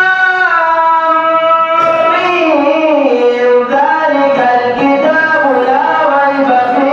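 A man chanting unaccompanied in the style of Quranic recitation, holding long, ornamented notes that slide between pitches.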